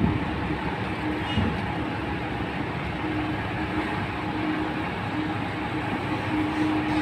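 Heavy diesel container-handling machinery running: a steady, dense mechanical noise with a droning tone that comes and goes.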